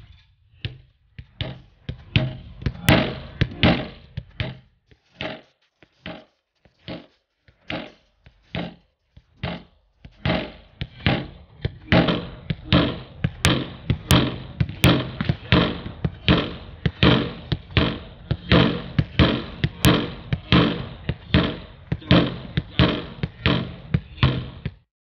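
A football repeatedly kicked against a rebound board and played back, each strike a sharp thud. The hits are sparse at first, then from about ten seconds in come in a steady rhythm of about two a second.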